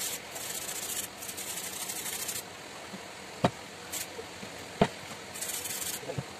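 A hand tool scraping rust off a submersible pump motor's steel casing in quick rasping strokes. The scraping breaks off for two sharp knocks near the middle, then a short run of strokes comes back near the end.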